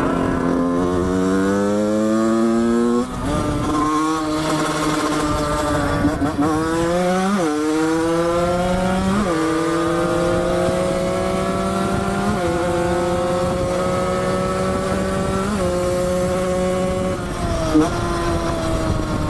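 50cc two-stroke dirt bike engine with a Doppler Vortex cylinder kit accelerating hard through the gears, its pitch climbing in each gear and dropping at each upshift, about six shifts in all.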